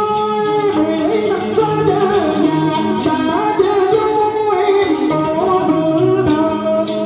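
A man sings a Vietnamese cải lương song through a microphone, his voice sliding and bending between held notes, over plucked guitar accompaniment.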